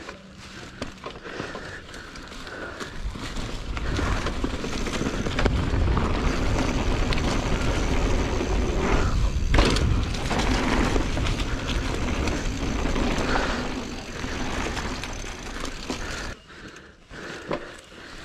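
Wind rushing over a moving microphone with a heavy low rumble, building a few seconds in and dropping away sharply near the end.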